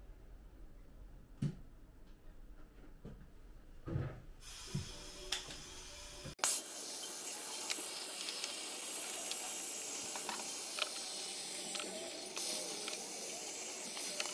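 A few light knocks, then about six seconds in a handheld gas blowtorch starts with a steady hiss as its flame chars the cupboard's wooden worktop (shou sugi ban).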